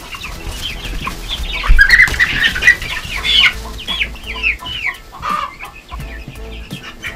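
Young hens clucking and chirping in a series of short calls that sweep down in pitch, busiest in the first few seconds, with brief wing flaps and rustling in wood shavings as a bird is set down among them.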